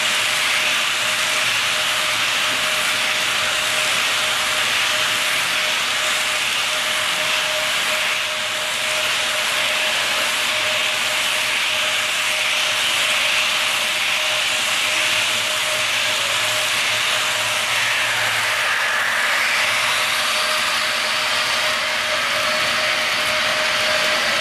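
HO scale double-stack container cars rolling along model track: a steady rushing hiss of metal wheels on rails, with a faint steady hum underneath.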